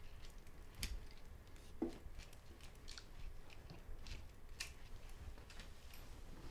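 Faint, irregular small clicks and handling noises in a quiet room, with a brief low sound just under two seconds in.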